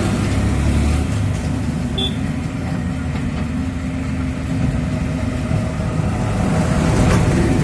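Diesel engine of a JCB 3DX backhoe loader running steadily, with a short high chirp about two seconds in.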